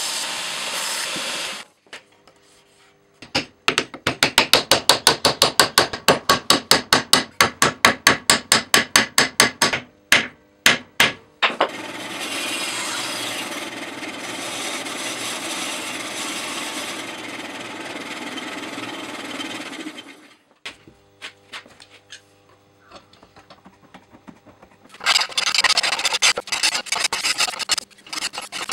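A belt grinder runs as a wooden wedge is shaped on it, then stops. After a run of quick hand-tool strokes at about four a second, a bandsaw runs for several seconds cutting a wooden axe handle. Near the end a hand file scrapes in quick strokes along the edge of a clamped steel broad axe head, sharpening it.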